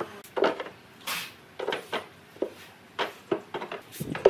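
Wooden boards and slats knocking and clattering against a wooden bed frame as they are set in place: a string of separate, irregular knocks.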